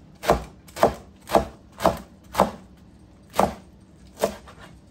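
Knife chopping through a rolled bundle of collard green leaves against a cutting board: seven crisp strokes, about two a second at first, then spaced out toward the end.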